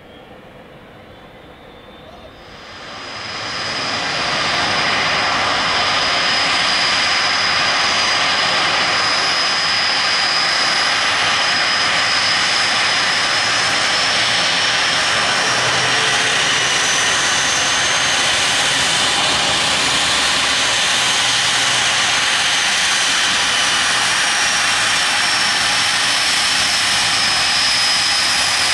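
A British Airways Boeing 747-400's four Rolls-Royce RB211 turbofans running as the jet taxis, a loud steady rush with a high, slowly wavering whine over it. The sound comes up sharply about two seconds in and then holds steady.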